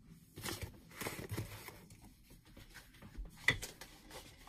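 Boxed craft kits and plastic-packaged dies being picked up and moved off a desk: light rustling and shuffling of cardboard and plastic packaging, with a sharp knock about three and a half seconds in.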